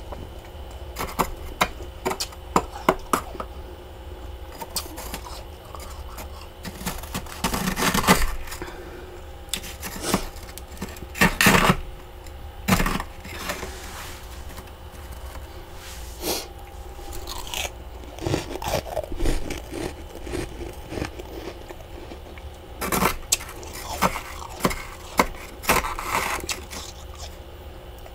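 Thick frost buildup in a freezer being scraped and broken off with a small hand scraper, in irregular crunching strokes mixed with sharp clicks and a few longer rasping scrapes.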